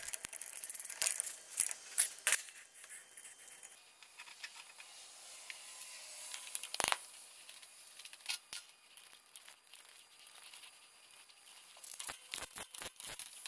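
Scattered sharp metallic clicks and taps of hand tools on a Dana 44 front wheel hub and spindle lock nut, with one louder knock about halfway through and a quick run of clicks near the end.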